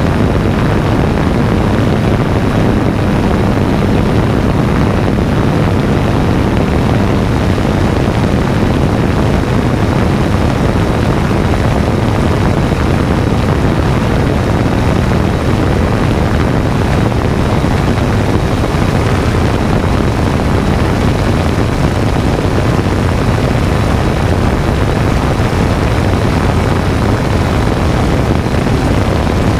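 3DR Solo quadcopter's electric motors and propellers running steadily and loudly, heard close up from the camera mounted on the drone, with a low steady hum under the whir.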